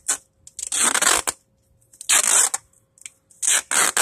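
Duct tape being pulled off the roll in three rips of about half a second each, roughly a second and a half apart.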